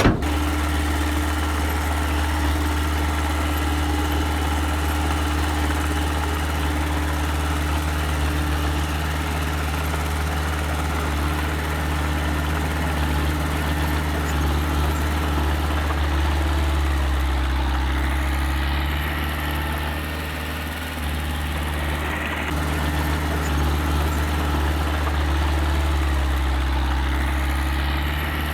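Engine of a small earthmoving machine running steadily with a low hum. Its pitch and level sag slightly around two-thirds of the way through, then recover.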